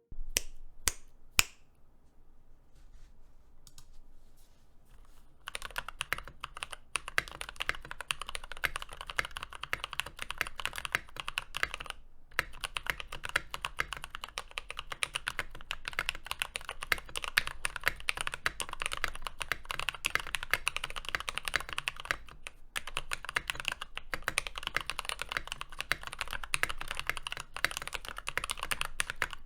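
Typing on a mechanical keyboard with JWK Cotton Candy light tactile switches: a few separate key clicks at first, then about five seconds in, fast continuous typing with brief pauses.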